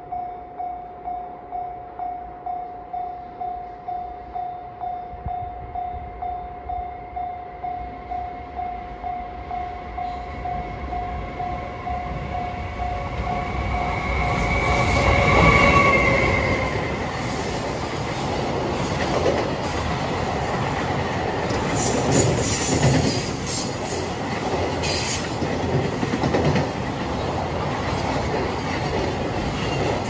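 A level-crossing warning bell rings about twice a second while an EF510 electric locomotive hauling a container freight train approaches. The train is loudest as the locomotive passes about 15 seconds in, and then the container wagons rumble past, their wheels clattering over the rail joints.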